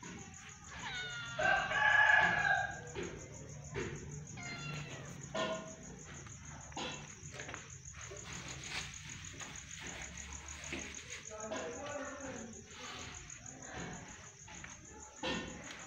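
Crickets chirping steadily. About a second in, one loud drawn-out animal call with a held tone lasts about a second and a half, and fainter calls and clicks follow later.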